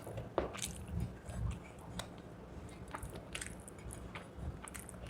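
Close-miked chewing of rice and chicken leg curry: wet mouth smacks and small clicks at an irregular pace.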